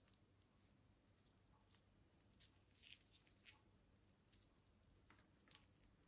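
Near silence with a few faint, short clicks and scrapes of the slimy skin being peeled from slippery jack (Suillus luteus) mushroom caps.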